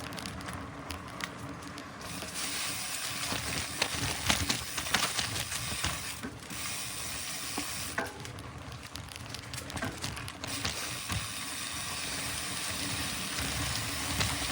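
Mountain bike tyres rolling and crackling over a leaf-strewn dirt trail, with scattered clicks and knocks from the bike rattling over the ground.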